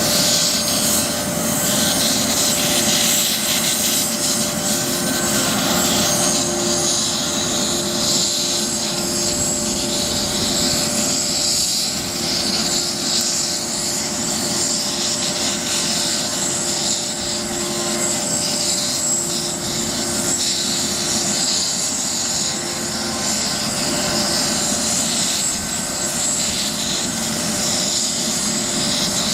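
Police helicopter's turbine engines and rotor running steadily, a continuous high whine over a broad rush, with no rise or fall in pitch.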